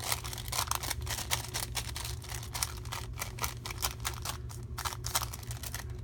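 Rapid, irregular tapping and scuffing of an ink blending tool dabbed against the edges of a glassine paper bag, distressing it with ink.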